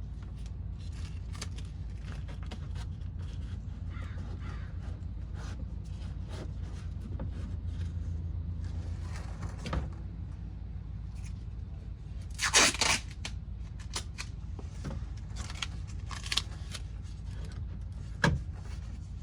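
Tape being pulled off the roll and pressed down, with scattered clicks and rustles and one loud, rasping rip of tape about two-thirds of the way in, over a steady low hum.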